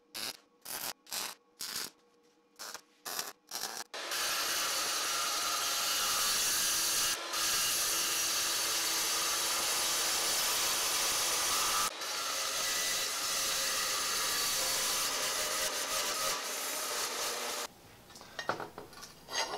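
MIG welder laying a quick string of short tack welds, each a brief burst. Then an abrasive chop saw runs steadily through steel tubing for about thirteen seconds with two short breaks. Near the end, a steel tube scrapes as it slides into a larger square steel tube.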